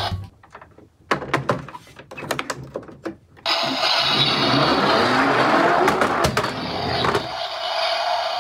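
Hard plastic clicks and knocks as a toy garbage truck is handled and set down, then about four seconds of steady rolling and whirring as it is pushed along, with a faint rising whine partway through.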